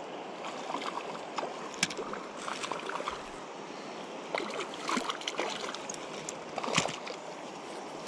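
Steady rush of shallow river current, broken by a few short, sharp splashes and clicks as a hooked fish thrashes at the surface while it is reeled in on an ultralight spinning rod.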